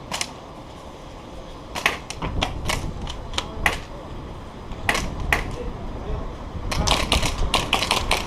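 Airsoft guns firing in sharp snaps, scattered at first and then in a quick string near the end, over a low rumble.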